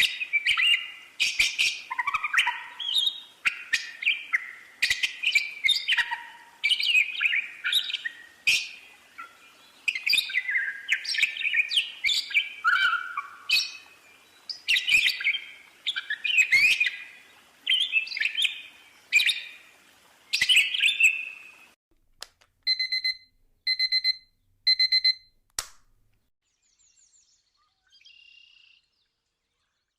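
Birds chirping and calling in quick, busy bursts of high notes. About 23 seconds in, three evenly spaced electronic beeps, like an alarm clock.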